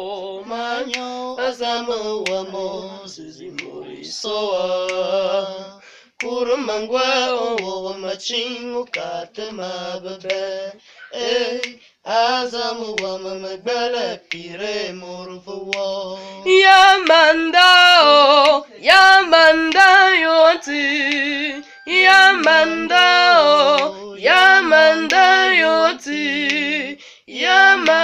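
A young person's voice singing solo and unaccompanied, holding and bending notes with short breaks between phrases. The singing grows much louder about two-thirds of the way through.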